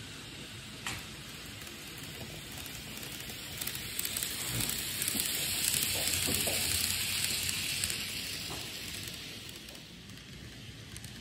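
N-gauge model train running past on the track: a fine hissing rattle of wheels on rail that swells over a few seconds and then fades away, with a few light clicks.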